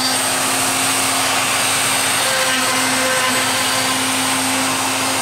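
Workshop dust collector running with a steady, noisy rush, over the steady whine of a home-built CNC router's spindle carving a wooden sign.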